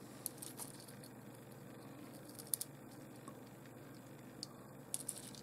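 Small, sharp clicks of rough opal pieces tapping against one another and against fingernails as they are picked up and handled, in a few short clusters, over a faint steady hum.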